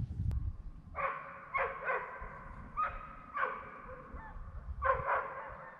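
An animal calling in a string of about seven short calls, each a steady note at one pitch with a sharp start, beginning about a second in and coming at uneven intervals.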